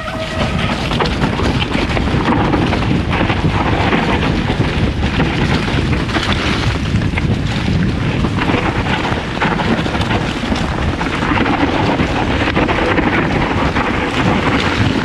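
Heavy wind rush on the camera's microphone while riding a mountain bike fast down a trail, a steady loud noise with scattered knocks and rattles from the rough ground.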